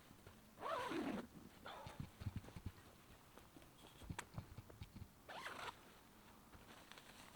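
Tent being pitched: two short zipping strokes about four and a half seconds apart, with soft knocks and ticks between them.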